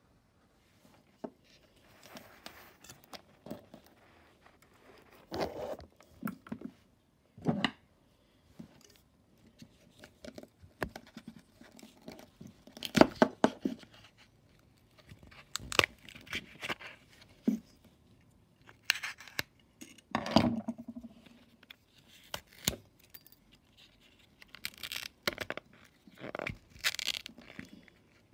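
The cone and surround of a blown Philips surround-sound speaker driver being scraped and torn apart by hand. Irregular tearing, scraping and crackling, with sharp clicks scattered throughout.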